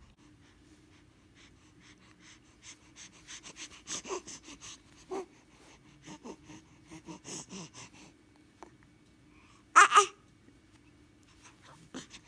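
A young baby breathing and snuffling in short soft puffs, then sneezing once, loudly, about ten seconds in.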